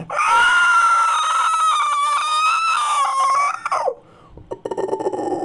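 A high-pitched, drawn-out scream from a made-up creature sound effect, wavering slightly and dropping off in pitch as it cuts out after about three and a half seconds. After a brief pause a lower, rattling growl begins near the end.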